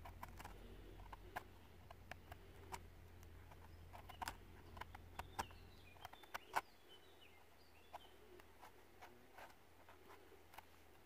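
Small knife blade scraping soil off the stem of a freshly picked bolete mushroom: crisp, irregular scratches and clicks, about two or three a second.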